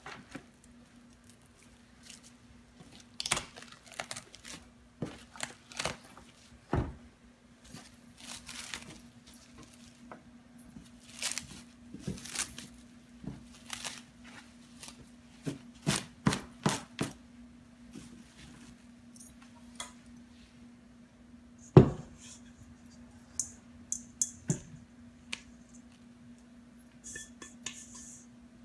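Plastic cling wrap being pulled off the roll, torn on the box's cutter edge and crinkled as it is smoothed flat on a table, in irregular crackles and taps. There is one loud sharp knock about two-thirds of the way through.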